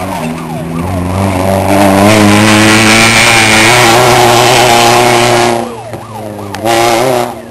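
Rally car engine revving hard as the car passes close by on a dirt stage, with road noise under it. It drops off about five and a half seconds in, revs once more briefly near the end, then fades.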